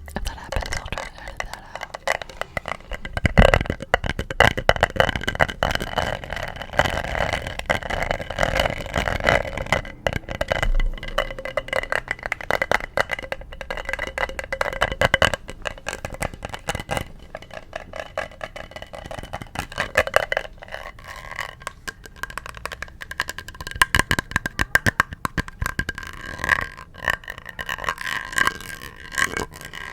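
Rapid, continuous tapping on an object, many quick taps a second, with a faint ringing from the tapped surface.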